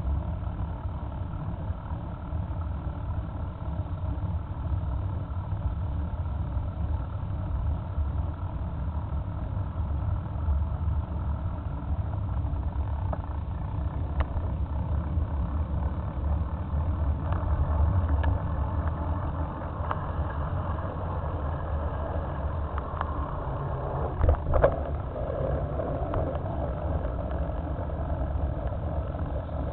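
Motorcycle engine running steadily at low revs as the bike rolls slowly, with a short louder noise about 24 seconds in.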